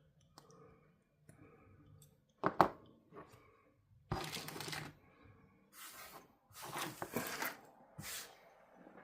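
Handling noises at a hobby workbench: a pair of sharp clicks a little over two seconds in, then several short bursts of rustling and scraping as small tools and parts are moved about.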